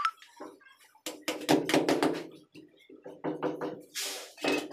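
Rapid tapping on a large ceramic floor tile: runs of quick knocks with a ringing tone, broken by short pauses, with a brief hiss about four seconds in.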